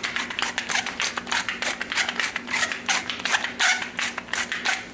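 Pepper mill grinding black peppercorns: a quick, even run of crunching strokes, about five a second, that stops just before the end. A faint steady hum runs underneath.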